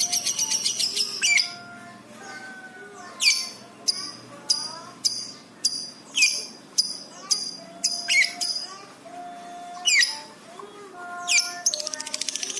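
Lovebird chattering: a fast high trill, then a string of sharp high chirps about every half second, with softer lower whistles underneath. The fast trill starts up again near the end.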